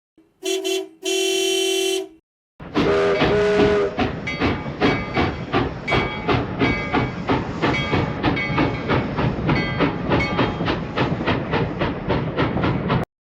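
Train sounding two whistle blasts, a short one then a longer one, then a brief toot as it gets under way and runs with an even rhythmic clatter of about three beats a second. The clatter stops abruptly near the end.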